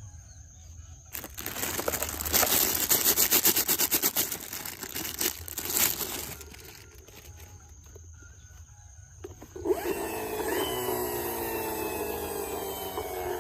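Hard plastic toys rattling and clicking in a fast dense run for about five seconds. After a pause, a toy's electronic sound effect starts near the end, several tones sliding downward.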